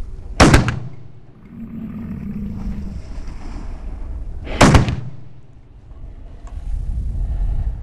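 Two rifle shots about four seconds apart, each a sharp crack with a short ringing tail, fired from a big-game double rifle into a downed water buffalo as finishing shots.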